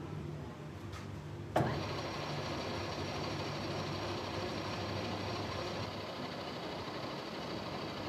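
A workshop machine switches on with a sharp click about a second and a half in, then runs steadily with a dense, even noise.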